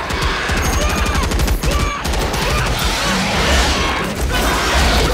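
Film battle sound effects: many assault rifles firing in a sustained automatic barrage, with rapid repeated shots over a continuous low rumble.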